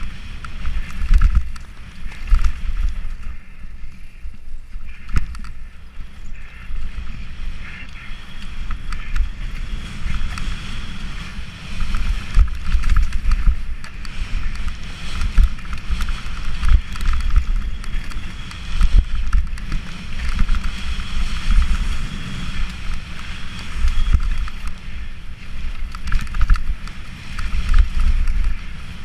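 Mountain bike descending a dirt and rock trail: wind buffeting the microphone with a heavy, fluctuating rumble, tyres rolling over dirt and stones, and the bike knocking and rattling over bumps throughout.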